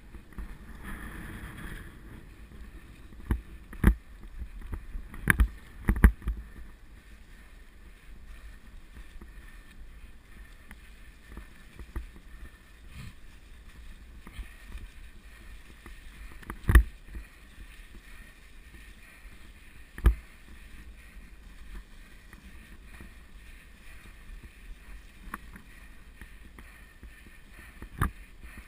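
Mountain bike riding a dirt and leaf-covered singletrack, heard from a GoPro camera carried on the ride: a steady muffled rumble of tyres and air, with sharp knocks and rattles as the bike hits bumps, the loudest about 6 and 17 seconds in.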